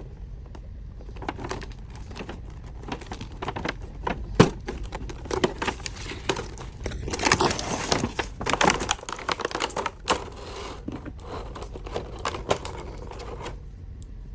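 Packaging being handled and unwrapped: plastic crinkling with many sharp clicks and taps, busiest midway and thinning out near the end.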